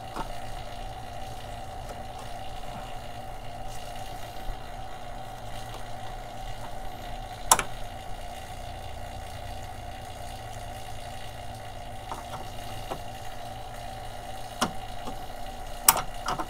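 A pump runs with a steady hum, drawing a vacuum on the A/C service hoses. Over it come a few sharp clicks as a quick-connect coupler is worked onto the car's A/C service port: the loudest about seven seconds in, two more near the end.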